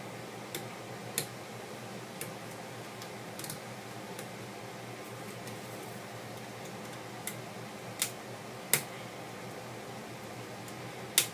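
Scattered small, sharp clicks and taps of a cell phone's parts and a small tri-tip screwdriver being handled during disassembly, about eight in all and irregularly spaced, over a steady low hum.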